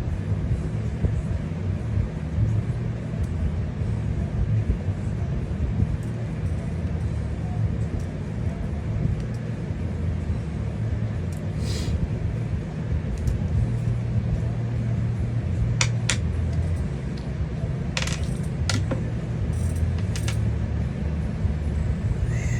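Steady low hum with a handful of small metallic clicks and taps in the second half, from paintball regulator parts and tools being handled on a bench.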